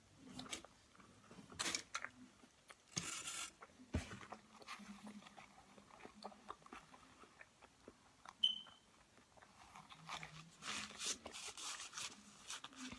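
Close-up eating sounds: chewing and crunching mouthfuls of a Chipotle burrito bowl, with small mouth clicks, coming in bursts. A brief high-pitched tone sounds about eight and a half seconds in.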